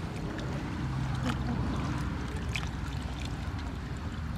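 Steady low hum of a small boat's motor. Over it, a few short wet slaps and splashes come from a pile of live fish and water in the boat as they are handled, the clearest about a second and two and a half seconds in.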